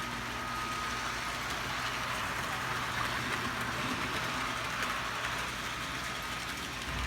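Model train running on its track: a steady electric-motor whir over the rolling of wheels on the rails.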